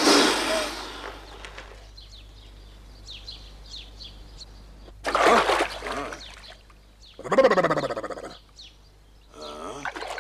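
A cartoon splash as a tiny figure drops into water, loud at the very start and fading over about a second. It is followed by two loud calls with falling pitch, about halfway through and again a couple of seconds later.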